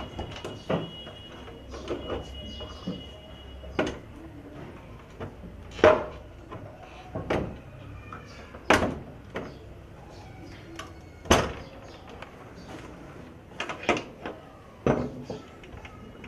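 Iron bar clanking and scraping against a padlock and door hasp as it is levered to force the lock. The clanks are irregular and sharp, with the loudest about six, nine and eleven seconds in.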